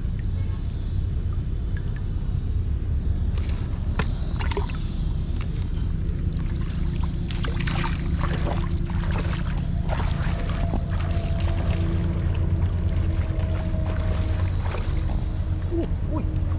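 Shallow water sloshing and trickling, with scattered splashes and clicks over a steady low rumble.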